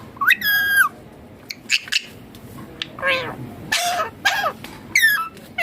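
Indian ringneck parakeet calling: about half a dozen short, shrill calls, some gliding up in pitch and some gliding down.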